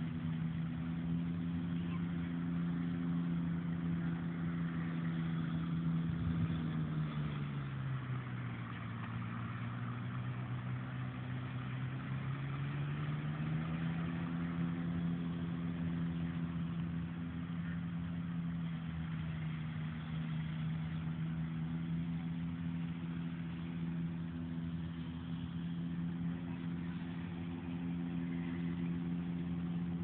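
An engine running steadily. Its pitch drops about seven seconds in, stays low for a few seconds, then climbs back to its earlier pitch and holds there.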